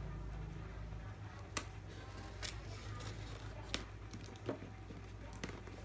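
A small knife slitting packing tape on a cardboard parcel, with scattered sharp clicks and scrapes as the blade and hands work the box. A steady low hum runs underneath.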